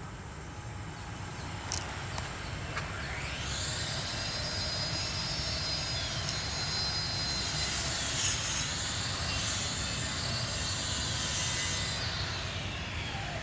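A high engine whine that rises in pitch about three seconds in, holds steady, and falls away near the end, over a steady low rumble; it grows louder toward the middle and then eases.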